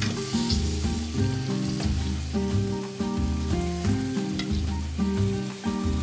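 Halved blue swimmer crabs frying in hot olive oil with garlic and spring onion, sizzling steadily. The sizzle is strongest in the first second as the pieces go into the pan.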